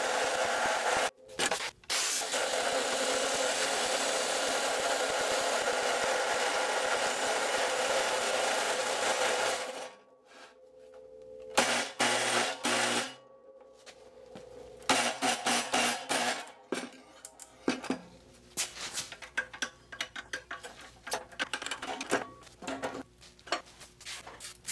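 DeWalt abrasive chop saw cutting through a 2¼-inch mild steel bar: a steady, loud grinding of the abrasive wheel in the steel for about ten seconds, broken by two short gaps near the start, then the wheel winds down. After that come scattered knocks and clatter.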